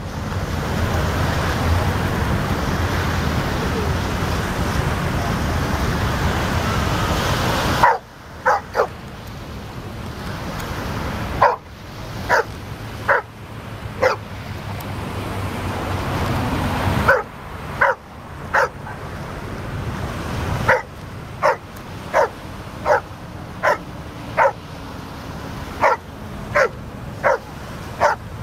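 Dog barking over and over in short, sharp barks, about one a second, as it plays in breaking waves, with surf washing behind it. For the first eight seconds there is only a loud steady rushing noise, and the barking starts after that.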